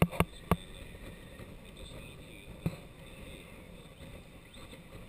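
Sailing yacht underway: a steady rush of water and wind along the hull. A few sharp knocks come in quick succession at the very start, and one more comes about halfway through.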